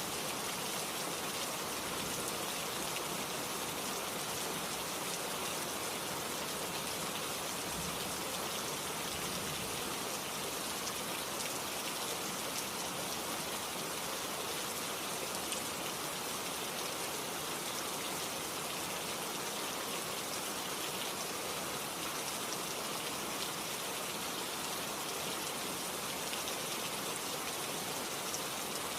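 Heavy rain falling steadily, a dense even hiss of raindrops hitting a surface.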